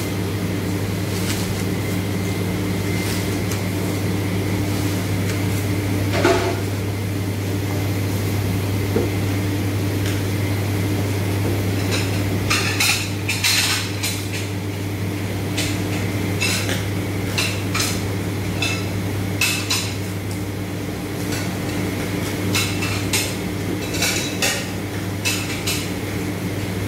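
Plastic cling film crackling and crinkling as it is pulled off a dispenser roll and wrapped tightly around a log of raw beef, in short runs of clicks, most around the middle and near the end. Under it runs a steady electrical hum.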